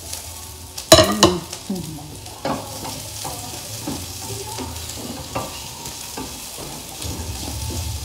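Garlic and onion frying in oil in a non-stick pan, sizzling as they brown, with a slotted spatula stirring and scraping against the pan. A sharp clatter of utensil on the pan about a second in is the loudest sound.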